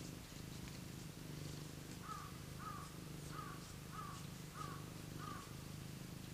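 Domestic cat purring steadily, a low rumble that pulses with each breath. About two seconds in, six short calls sound in quick succession, roughly one and a half a second.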